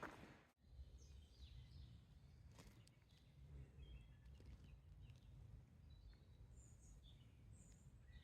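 Near silence: faint outdoor ambience with a low rumble and a few faint, short high chirps.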